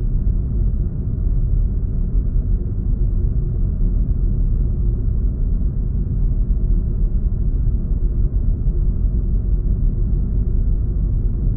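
Designed spaceship ambience: a steady, deep rumble with a faint low hum, layered from several recordings to suggest a starship travelling through space.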